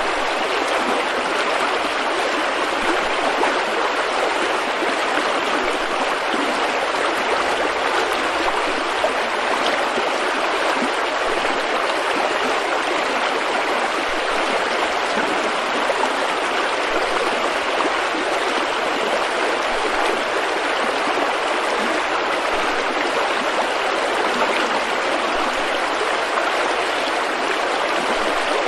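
River rapids: fast water rushing and splashing over rocks in a steady, unbroken rush.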